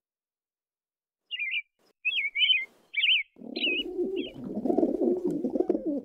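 Birdsong: a small bird's short chirping phrases start about a second in, then a dove's low cooing comes in about halfway through and continues.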